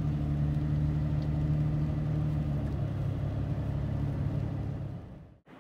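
Car driving: a steady engine and road drone with a low hum. It fades in the last second and cuts off abruptly near the end.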